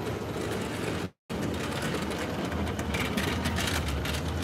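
Plastic bottle crackling and clicking as carbonated jelly drink is sucked out of it, over steady street traffic noise. The sound drops out for a moment about a second in, and the rapid crackling comes in during the second half.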